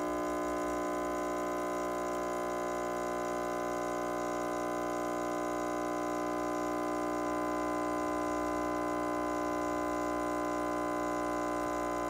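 Rancilio Silvia espresso machine's vibratory pump running with a steady hum as it pushes water through the puck to pull an espresso shot.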